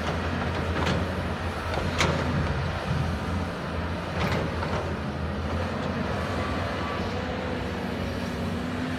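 CAT 320D tracked excavator's diesel engine running steadily under work while it digs and loads soil, with three sharp knocks about one, two and four seconds in.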